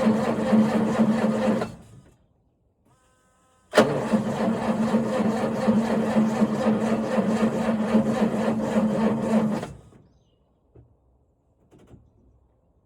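John Deere 6910 tractor's starter motor cranking the cold diesel engine, which does not fire: a failed cold start in frost. The cranking stops about two seconds in, then the starter engages again with a sharp click and cranks steadily for about six more seconds before cutting off.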